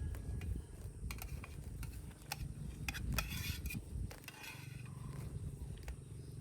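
Camp cookware and utensils clinking with scattered sharp clicks and two short scrapes, over a steady low rumble.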